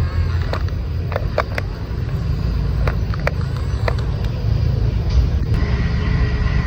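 Small electric motors of a toy RC excavator working sand: a steady low rumble with a scatter of sharp clicks, and a steady motor whine starting about five and a half seconds in.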